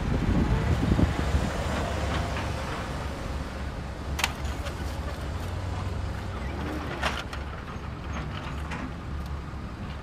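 Plastic wheels of a Bruder MACK Granite toy low-loader truck rolling as it is pushed along a rubber mat and rough toy road, a steady low rumble that is loudest in the first second or so. Two sharp clicks come about four and seven seconds in.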